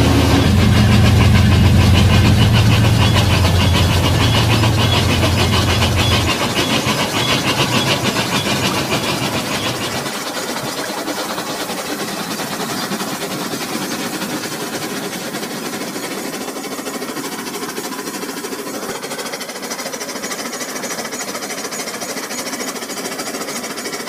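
Battery-powered toy trains running on plastic track: small electric motors whirring and wheels clicking steadily along the rails. A loud low hum in the first several seconds fades out, leaving an even, higher whir.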